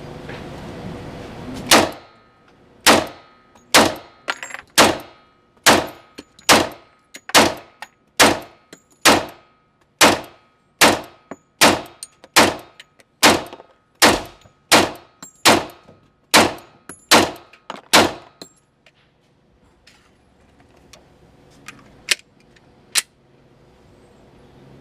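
FN 510 Tactical 10mm pistol firing about twenty shots at a steady pace of roughly one a second, each a sharp crack. A few lighter clicks and knocks follow near the end.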